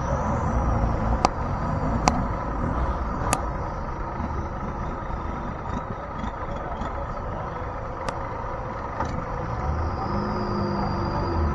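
Longtail boat engine running steadily while the boat is underway, a loud low rumble with a steady drone and a few sharp clicks.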